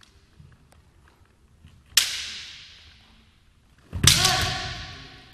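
Bamboo kendo shinai striking: a sharp crack about two seconds in, then a louder clash with a heavy thump and a shout about four seconds in. Both ring out in the echo of a large gym hall.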